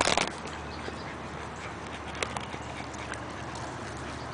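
A loud knock and rustle of the handheld camera being set down, then a steady outdoor background with a few faint clicks.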